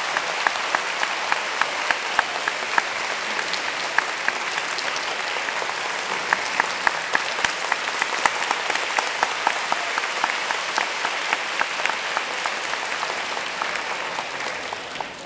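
Audience applauding, dense clapping with one set of close claps standing out at about three a second; the applause dies away near the end.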